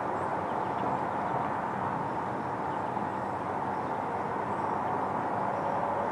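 Steady rushing outdoor background noise, even in level, with no distinct events.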